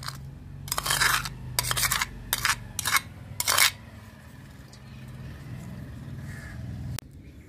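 Metal spoon scraping diced tomatoes out of a glazed clay bowl onto a steel tray: about five short, loud scrapes in the first four seconds, then only faint handling.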